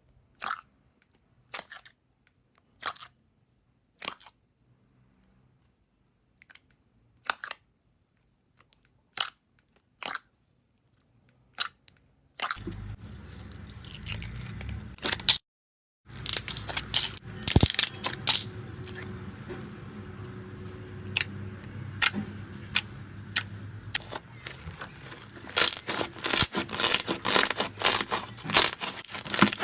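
Slime being handled, giving short crunchy crackles a few at a time with quiet between them. About twelve seconds in it cuts to another clip, where a steady faint hum lies under denser crackling and popping that grows busier near the end.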